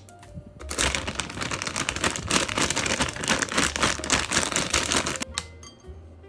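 Dense crinkling, crackling noise of many fine rapid clicks, starting about a second in and stopping about five seconds in.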